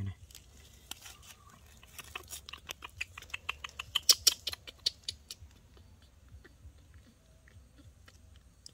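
Baby macaque chewing and smacking its lips as it eats from a spoon: a quick run of small wet clicks, about six a second, loudest around four seconds in, then thinning to scattered faint clicks.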